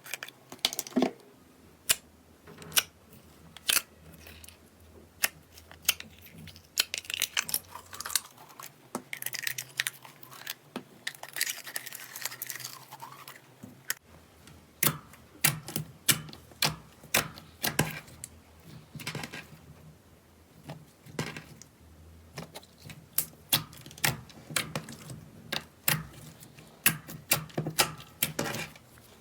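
Slime being pressed, poked and stretched by hand, giving irregular sharp pops and crackles as trapped air bursts, at times several in quick succession.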